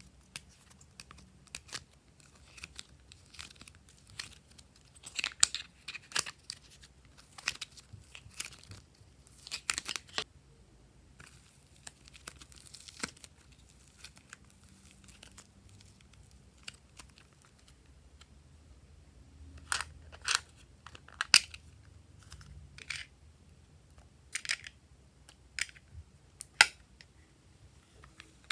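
Slime being kneaded and stretched by hand, giving irregular sticky pops and crackles.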